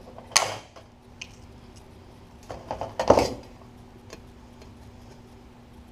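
Sheet metal parts and a pop rivet being worked by hand: a sharp metallic clank about half a second in, then a run of clicks and a louder clank about three seconds in. The rivet is being forced at bracket holes that are misaligned.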